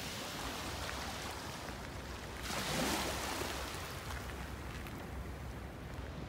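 Small waves lapping at the water's edge, a steady wash of water, with a louder surge of water about two and a half seconds in.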